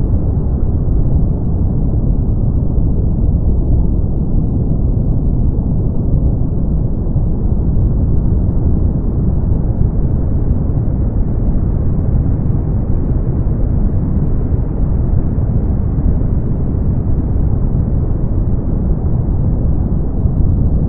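Brown noise: a steady, deep hiss like a low rumble, with most of its weight in the bass and no bright highs, unchanging throughout.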